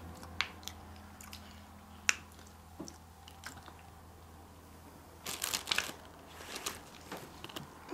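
Close-up eating sounds as strawberry shortcake with whipped cream is bitten and chewed. There are a few scattered mouth clicks, then a denser run of wet chewing and smacking about five seconds in.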